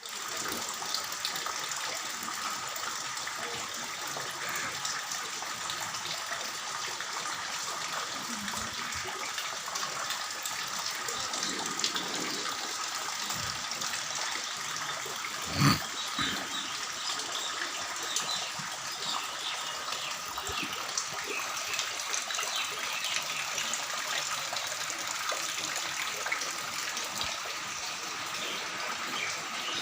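Floodwater rushing and flowing in a steady stream, with a single short thump about halfway through.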